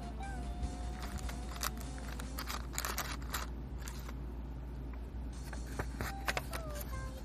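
Hands handling a black plastic parts runner and a paper instruction sheet: sharp clicks and rustling from about one to three and a half seconds in and again around six seconds in. A thin background tune plays at the start and near the end.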